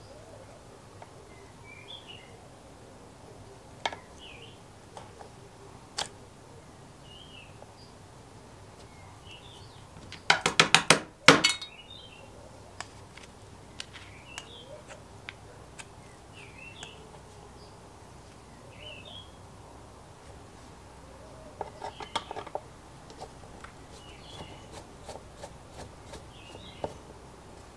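Small hard clicks and taps of a screwdriver and plastic parts as the terminal box cover comes off a sandwich toaster's base. There is a rapid clatter of clicks about ten seconds in, the loudest sound, and another group of clicks near twenty-two seconds. Faint bird chirps carry on in the background.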